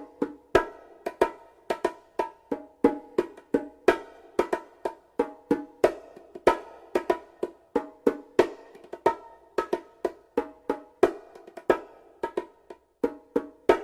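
Hollow wooden percussion, like wood blocks, struck in an uneven rhythm of roughly three hits a second across a few different pitches, each hit with a short ringing tail.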